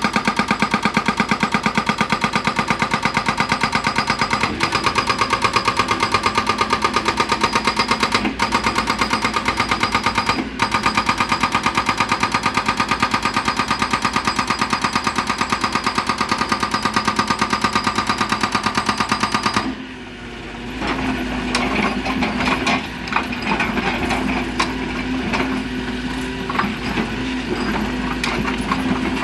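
Excavator-mounted hydraulic breaker hammering stone in a rapid, even stream of blows that stops abruptly about twenty seconds in. After that the machine runs on under irregular clanks and knocks.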